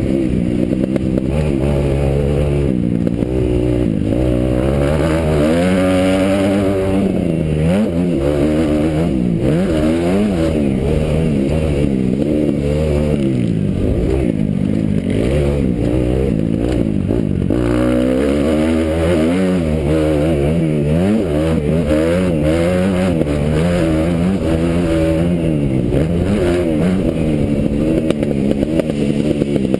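Kawasaki motocross bike's engine heard from on board, revving hard and backing off again and again, its pitch rising and falling as the rider accelerates out of corners and shuts off into them.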